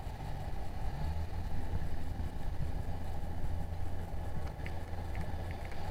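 Outboard motor of an inflatable coach boat running steadily, a low even hum, under wind and water noise.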